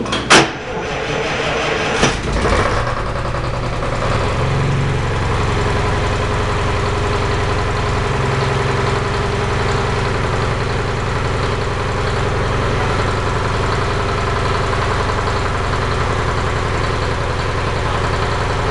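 Freshly rebuilt Detroit Diesel 2-71 two-cylinder, two-stroke diesel starting up: a sharp loud bang just after the start, a burst as the engine catches about two seconds in, then running steadily at idle.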